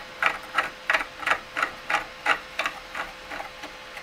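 3D-printed plastic threaded pen-holder parts being screwed together by hand, the printed threads giving a short scraping click about three times a second, fading out near the end.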